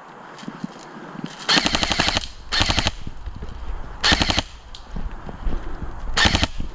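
Airsoft gun firing on full auto in four short bursts of rapid, evenly spaced shots, the first about one and a half seconds in and the longest.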